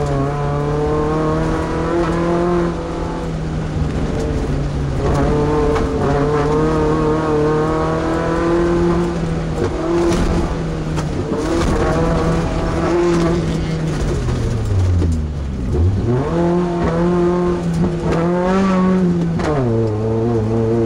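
Class 2 off-road race truck's engine running hard under load at steady high revs. About two thirds of the way through the revs fall sharply, then climb back up, and they drop briefly again near the end.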